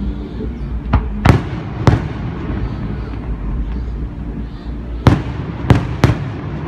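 Aerial fireworks shells bursting: six sharp bangs in two clusters of three, one cluster about a second in and another about five seconds in, over a steady low background rumble.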